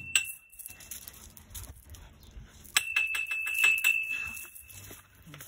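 A metal pole struck with a small hand-held object: one ringing tap just after the start, then a quick run of about ten taps from about three seconds in, each ringing at the same high pitch. It is the signal used to call the dogs together.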